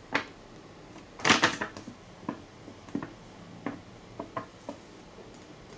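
Paper leaflets being handled and leafed through: a short rustle about a second in, then a scattering of light clicks and taps.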